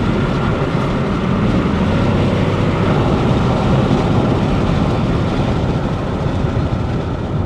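Rebuilt LS4 5.3-litre V8 of a 2006 Chevrolet Monte Carlo SS coasting with the throttle closed, heard from inside the cabin as a steady mix of engine and road noise. It is engine braking after a pull to about 4,000 rpm: the closed throttle plates draw high intake vacuum to seat the new piston rings.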